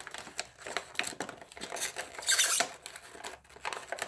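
Die-cast toy car's packaging being handled and opened: a string of plastic clicks, clacks and crinkles, with a louder scraping rustle about two seconds in.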